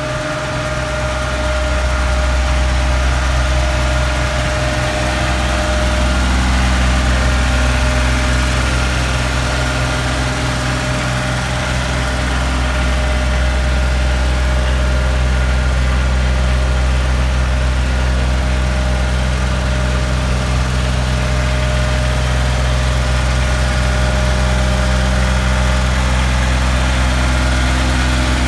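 Kubota compact tractor's diesel engine running steadily at full throttle, turning a Dayton 15 kW PTO generator that is powering a house, with no change in speed.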